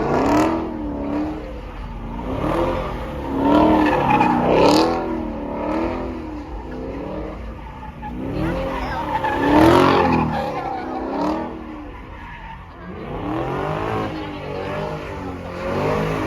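Car engine revving up and down over and over while the tires squeal in short bursts, the sound of a car being driven hard in a burnout or donuts.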